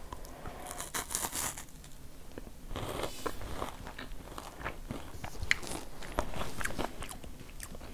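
Biting and chewing a Fazer Geisha chocolate-covered wafer: small crisp crackles and crunches, busier in the first few seconds and sparser after.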